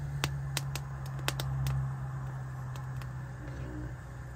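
Jalapeño pepper roasting directly over a propane stove burner's flame, its blistering skin giving off irregular sharp pops and crackles over a steady low hum.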